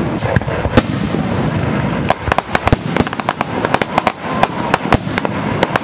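Aerial fireworks display: a rapid string of shell bursts and sharp bangs over continuous crackle, with the densest run of reports two to three seconds in.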